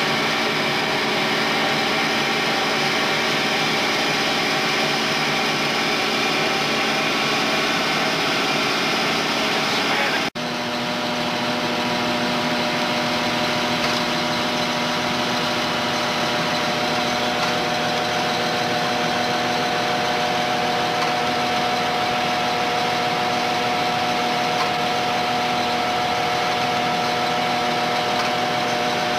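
Allis-Chalmers 8070 tractor's six-cylinder diesel engine running steadily under load while pulling a disc. About ten seconds in the sound drops out for a moment and comes back as a smoother, steadier hum.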